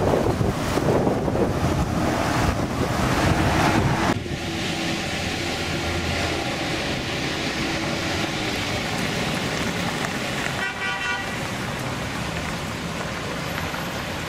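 Strong wind from a dust storm blasting the microphone. About four seconds in it drops to steadier wind with road traffic passing, and a car horn sounds once, briefly, about ten seconds in.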